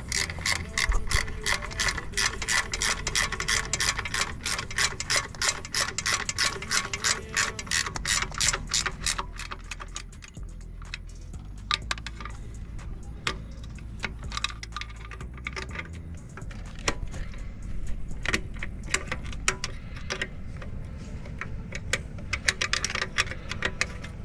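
Hand ratchet wrench clicking as a bolt on the engine's alternator bracket is worked, with rapid even clicks for about the first ten seconds, then sparser, uneven clicks.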